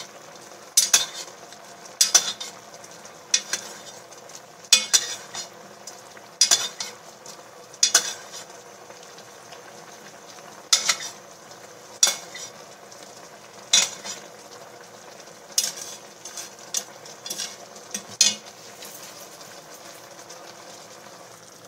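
A metal spoon knocking and scraping against an enamelled cast-iron pot about once every second or two as sauce is spooned over a whole chicken, over the steady bubbling of a sweet soy sauce simmering down. The knocks stop a few seconds before the end, leaving only the simmer.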